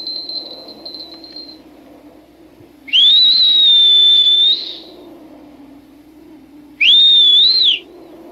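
Two loud whistles, a person whistling. The first glides up and is held for about a second and a half. The second, shorter one, about three seconds later, rises, dips and drops away. A faint low steady drone runs underneath.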